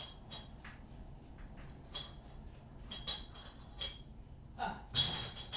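A series of short, sharp clinks and clicks of small hard objects being handled, some with a brief bright ring, the loudest cluster about five seconds in.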